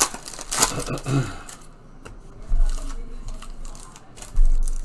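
Trading-card pack wrappers crinkling and cards being handled, with two low thumps from handling, the louder one near the end.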